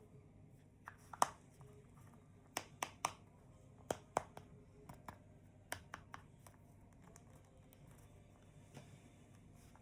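Hands handling items during an unboxing: a scattered run of sharp clicks and taps, the loudest about a second in, thinning out after about six seconds, with one more faint tap near the end.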